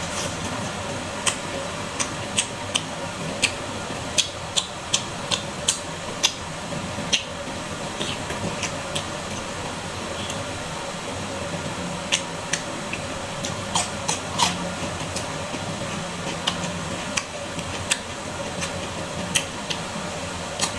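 Close-miked eating of squid salad: a string of short, sharp wet clicks and crunches from chewing, irregular, thick in the first several seconds and sparser later, over a steady hiss with a faint hum.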